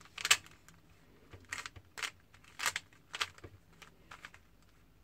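Plastic 3x3 Rubik's cube being turned by hand: a run of short, sharp clacks as its layers are twisted, irregularly spaced with brief pauses, the loudest about a third of a second in.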